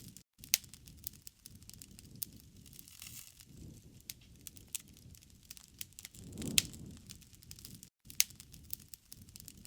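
Fireplace crackling: irregular sharp pops and snaps over a soft low rumble of burning wood, with a louder swell about six seconds in. The sound drops out to silence for a split second twice, near the start and about eight seconds in.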